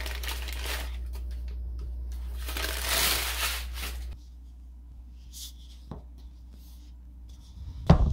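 Crinkly rustling of wrapping being handled, loudest about three seconds in, over a steady low hum that stops abruptly about four seconds in; a single thump near the end.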